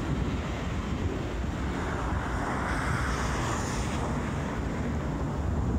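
Wind buffeting the microphone over steady road traffic noise, with a broad swell of noise about two to three seconds in.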